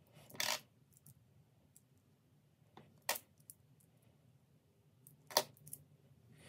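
Australian one-dollar coins clinking against each other as they are handled and sorted: three sharp clinks a couple of seconds apart, with lighter ticks between.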